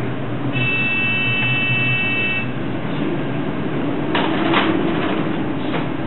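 Heavy seas and storm wind on a bulk carrier's deck: a steady rush of noise over the low hum of the ship. A steady high tone sounds for about two seconds near the start, and a couple of sharp hits about four seconds in, as waves break over the bow.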